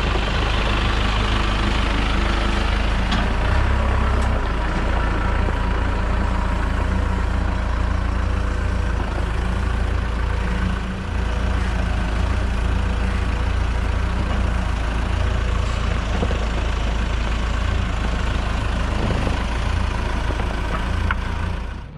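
Telehandler engine running steadily close by as the machine carries a block of steel on its forks and sets it on a trailer.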